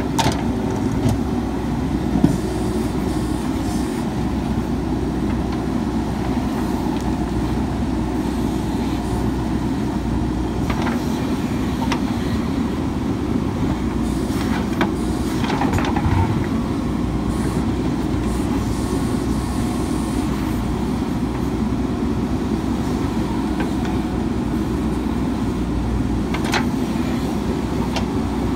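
JCB 3DX Super backhoe loader's diesel engine running steadily while digging a trench, with a few scattered sharp knocks and scrapes as the bucket works through stony soil.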